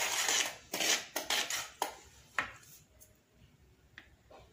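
Stainless steel wire whisk stirring dry wheat flour in a plastic bowl: a quick run of scratchy swishes with sharp clicks of the wires against the bowl, stopping about three seconds in. A single light click follows near the end.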